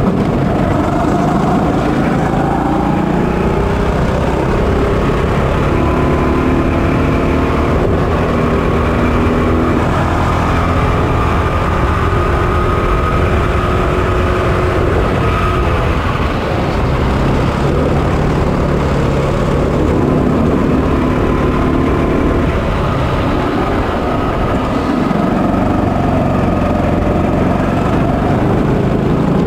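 Kart's single-cylinder 200cc four-stroke (GX200, 6.5 HP) engine running hard, heard onboard. Its pitch climbs as the kart accelerates, drops a little past halfway as it slows for a corner, then climbs again and drops once more near the end.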